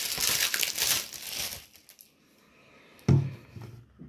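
Packaging crinkling and rustling as a Blu-ray is unwrapped, stopping after about a second and a half; about three seconds in, a single sharp knock of the plastic Blu-ray case being handled.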